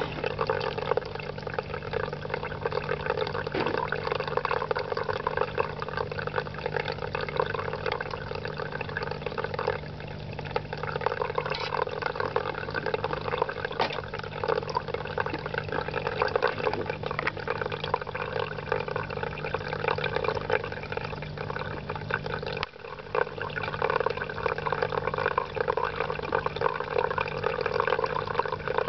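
Running water in a small home aquarium: steady trickling and bubbling from the filter or aeration over a low, steady pump hum. It drops away for a moment about three-quarters of the way through.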